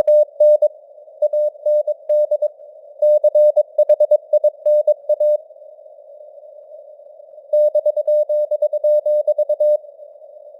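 Morse code (CW) keyed at 22 words per minute as a single steady mid-pitched tone in dots and dashes, over a band of simulated radio hiss like a CW signal heard through a receiver. The keying pauses for about two seconds in the middle, leaving only the hiss, then stops again near the end.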